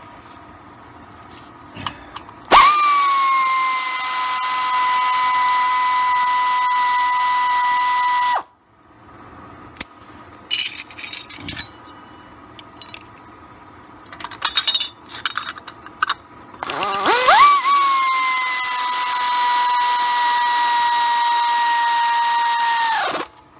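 Power ratchet running twice for about six seconds each, a steady whine with a hiss that spins up quickly and then holds, as it drives bolts into a brake caliper. Light metal clinks and taps sound between the two runs.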